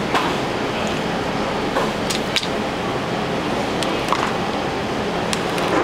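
Steady rushing background noise of kitchen ventilation, with a few light clicks and taps from work at the cutting board.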